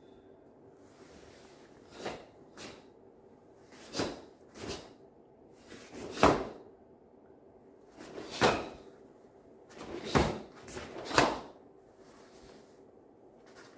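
A karate gi's sleeves and jacket snapping sharply with each strike and block of a kata. There are about nine cracks in uneven groups, the loudest in the second half, over a faint steady hum.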